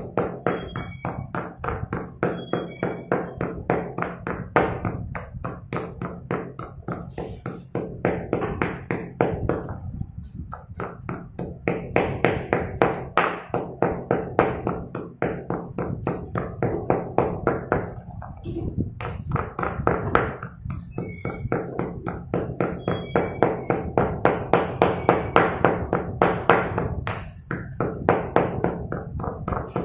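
Slate pencils being pounded and crushed with a stone pestle in a stone mortar: a quick, even run of crunching strikes, about three a second, with short high clinks among them and two brief pauses.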